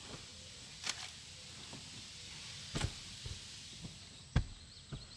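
Scattered knocks and thumps from a mattress pad being handled and worked into place, the loudest about four and a half seconds in, over a steady background hiss.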